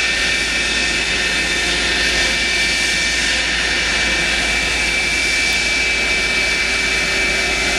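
Two-seat F-104 Starfighter's General Electric J79 turbojet running steadily as the jet taxis: a loud, even rush with a steady high-pitched whine over it.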